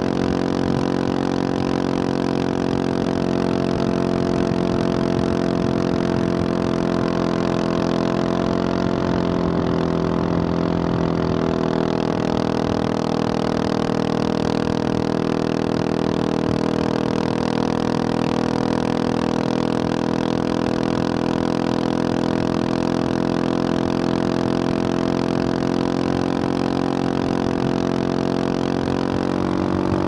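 2021 Husqvarna 701 Supermoto's single-cylinder four-stroke engine, fitted with a Wings exhaust, running at a steady cruise while riding, its pitch dipping slightly about nine seconds in and falling near the end as the bike slows. A steady hiss of wind and road noise lies under the engine.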